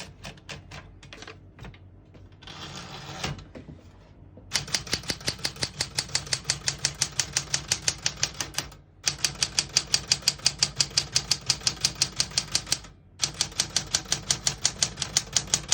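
1970 Smith-Corona Galaxie Deluxe manual portable typewriter being typed on, its typebars striking in quick even clatter of about four to five keystrokes a second, in three runs with short pauses between. Before the typing starts there are a few faint clicks and a brief rasping sound lasting about a second.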